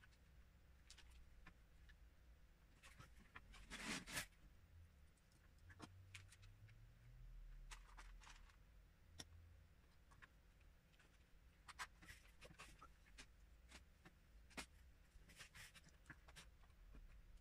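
Faint, sparse clicks and rustles of small plastic Lego bricks being picked up, handled and pressed together, with a louder rustle about four seconds in.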